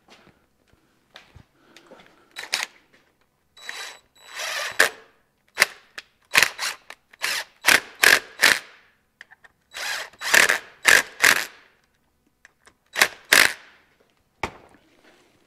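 Cordless drill/driver run in repeated short bursts, driving in the bolts of a PTO side cover, with a few faint handling knocks before it starts about four seconds in.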